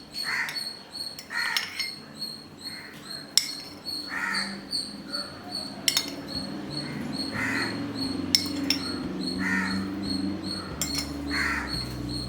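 A crow cawing over and over, one call every second or so. A few sharp clinks, like a steel spoon against a bowl, fall between the calls, over a steady low hum.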